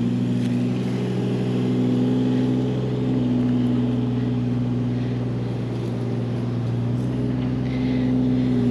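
Mini excavator's diesel engine running steadily while it backfills a trench, its pitch shifting a little as the machine works.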